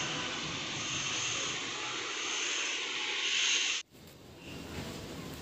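Steady outdoor background hiss with no distinct event, which cuts off abruptly about four seconds in and gives way to a quieter outdoor ambience.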